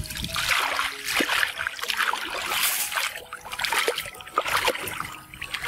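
Shallow muddy water splashing and sloshing in irregular bursts as someone wades through a field ditch.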